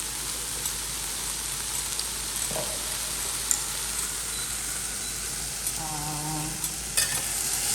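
Garlic frying in hot oil in a skillet, a steady sizzle with a few sharp clicks of a utensil against the pan.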